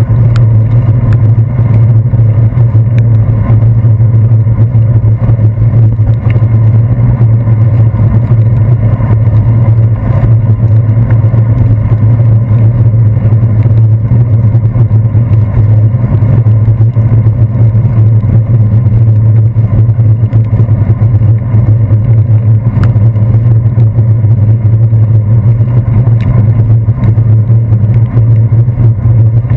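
Loud, steady low rumble of a bicycle ride on wet pavement, the wind and road vibration picked up by a handlebar-mounted GoPro Hero 2. It sounds dull, with little high end.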